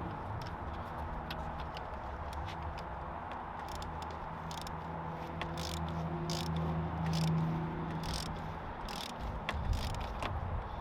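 Irregular metallic clicks and light rattling of hand tools and parts being worked on a RockShox Boxxer suspension fork during disassembly, over a steady low hum.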